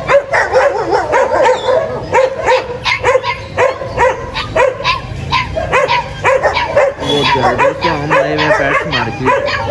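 Dogs barking over and over in quick succession, about three or four barks a second.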